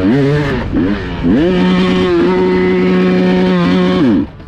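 Enduro motorcycle engine revving: a couple of quick blips of the throttle, then the revs climb and are held steady for about three seconds before falling back off near the end.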